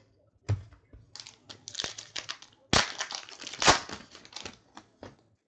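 Wrapper of a 2014 Panini Prizm World Cup trading card pack being torn open and crinkled by hand, a quick string of crackling rustles, loudest around three to four seconds in.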